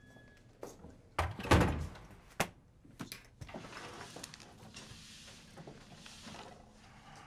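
A door being opened and shut, with a few sharp knocks and one heavy thud about a second and a half in, followed by a soft, steady hiss.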